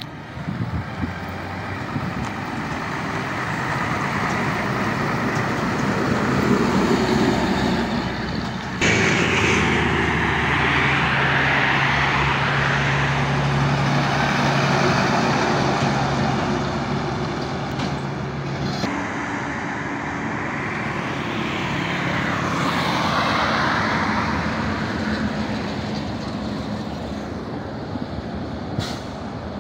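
Heavy trucks driving past on a highway: engines running and tyre noise swelling and fading as each goes by, with a steady low engine hum from about nine to nineteen seconds in. The sound changes abruptly twice, about nine and nineteen seconds in, where the clips are cut together.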